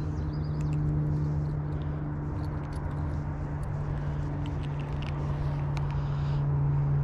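A steady low motor hum holding one pitch, over a haze of outdoor background noise, with faint high chirps scattered through it.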